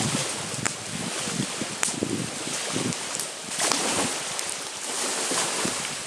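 Campfire crackling with a few sharp pops, under gusty wind buffeting the microphone and lake waves washing ashore; the wash swells about halfway through.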